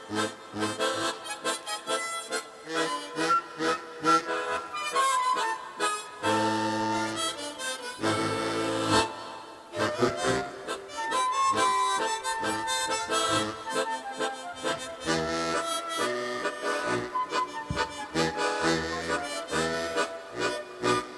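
Harmonica ensemble with a flute playing a tune live. It is mostly quick, short notes, with a few seconds of held chords over a low bass about a third of the way in.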